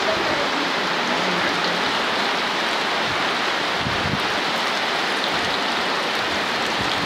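Heavy rain falling steadily onto a flooded street, a dense, even hiss of drops hitting standing water.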